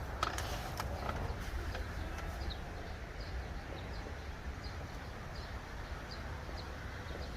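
Outdoor ambience: a small bird chirping short high notes about twice a second over a steady low rumble, with a few light clicks near the start.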